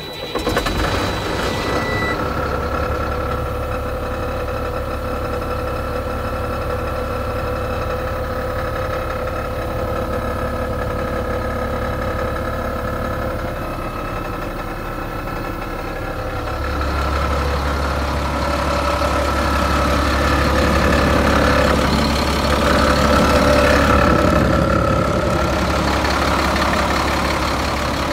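Caterpillar 3126 inline-six diesel of a 2001 Freightliner FL60 ambulance starting up and then idling steadily, with a thin warning tone for the first couple of seconds. The idle gets louder from a little past halfway.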